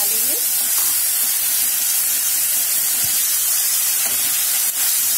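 Tomato puree frying in hot oil in a kadhai: a steady sizzling hiss.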